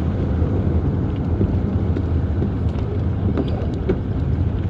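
Steady low rumble of a vehicle driving along a road: engine and tyre noise with wind on the microphone.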